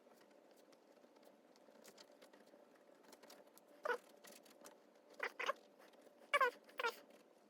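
A cat giving five short chirping meows in the second half, over faint light ticks and scratches like a pen writing on paper.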